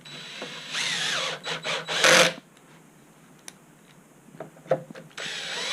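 Power drill-driver set to a very light clutch setting driving screws into plastic: a whirring run of about a second and a half with a rising whine, a few small clicks, then a second run starting near the end.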